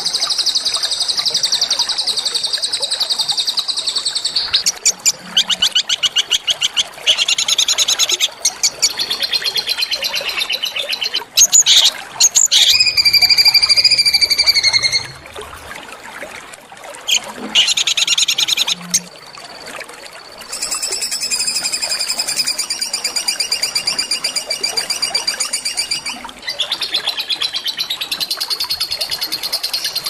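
Small songbirds singing long, rapid rolling trills, high-pitched and fast-pulsing, in stretches of several seconds with short breaks. About halfway through comes a held whistled note, followed by a quieter spell and then more long trills.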